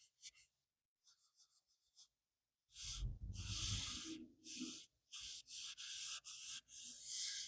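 Pencil scratching on drawing paper: a few short, light strokes, then after a short pause a run of longer, louder strokes with brief breaks between them.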